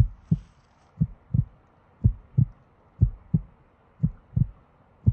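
Heartbeat sound effect: a steady lub-dub of paired low thumps, about one pair a second, laid in as a suspense effect.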